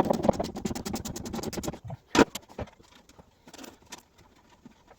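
Rapid, even clicking of a ratchet spanner tightening a bolt, then a single sharp metallic knock a little after two seconds, then a few light clicks.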